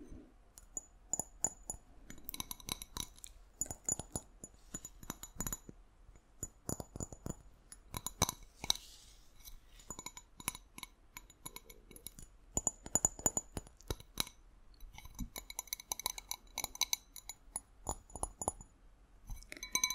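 Tapping on glass: quick, irregular clusters of light taps, each with a short bright ring.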